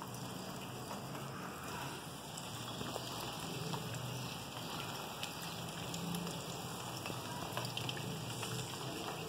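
Steady rain: a soft, even hiss with scattered ticks of drops landing.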